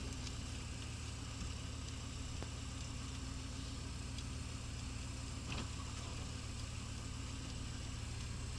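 A 1983 Pontiac Trans Am's 305 small-block V8 running steadily at low revs, a low even drone heard from inside the cabin. There is one faint tick about five and a half seconds in.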